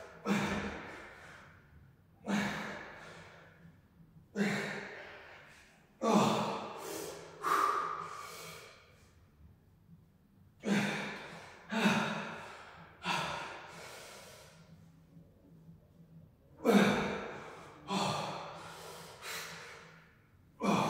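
A man breathing out hard with effort, about a dozen forceful breaths a second or two apart, in time with his reps of bent-over dumbbell rows.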